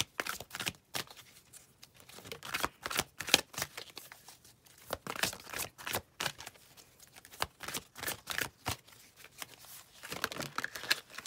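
Deck of oracle cards being shuffled by hand: irregular flurries of quick card snaps and slaps.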